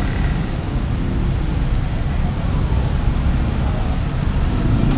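GPX Rato Esquire 250 motorcycle engine idling steadily while its newly fitted 28mm Keihin carburettor is adjusted with a screwdriver.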